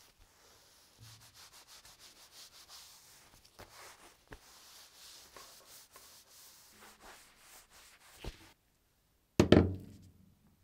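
Cotton towel rubbing over the cured epoxy coat of a baseball bat in quick repeated strokes, buffing the surface. A loud knock near the end.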